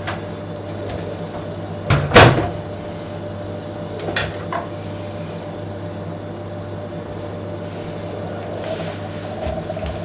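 Hard clacks from work at a front-loading washing machine's door while its seal retaining ring is set back in: one sharp clack about two seconds in, a lighter click about two seconds later, and faint scuffing near the end, over a steady low hum.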